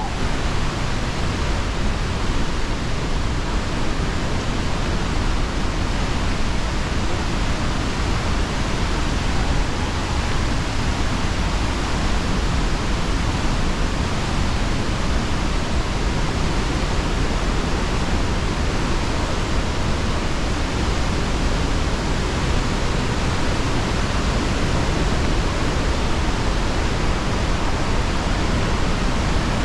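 Steady, loud rushing of a large waterfall, an unbroken wash of water noise with a deep low rumble.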